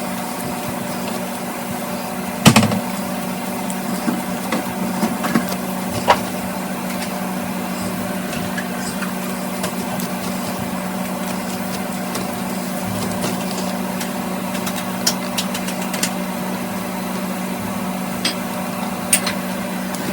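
A steady low machine hum, with a few sharp knocks and clicks over it; the loudest knock comes about two and a half seconds in.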